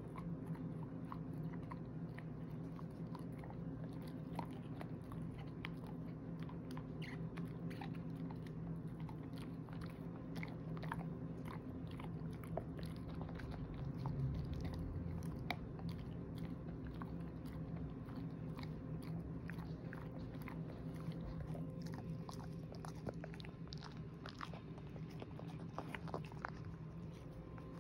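Shepherd-mix dog gnawing on a hard long-lasting chew treat, her teeth making many small, irregular crunches and clicks.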